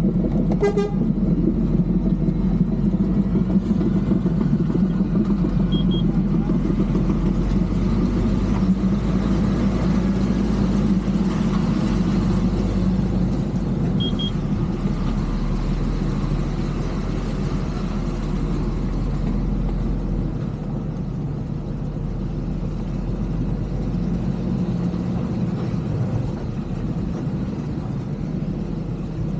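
Heavy diesel engine running steadily under load, with a brief horn toot about half a second in.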